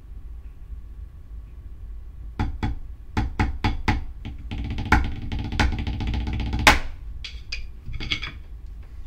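Drumsticks playing on a drum practice pad: a handful of separate strokes starting about two and a half seconds in, then a fast roll with accented hits that ends on one sharp accent, and a few last strokes near the end.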